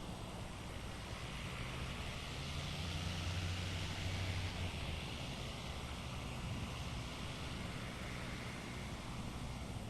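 Titan Tornado light aircraft's propeller engine droning overhead, heard from the ground. It swells to its loudest about three to four and a half seconds in as the plane comes nearest, then eases off.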